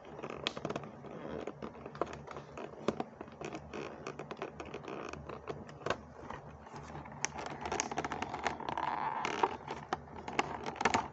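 Toy-car five-pack packaging being scraped, scratched and picked at by hand while it is worked open, with many small clicks and crackles. The scraping grows denser and more continuous from about seven seconds in.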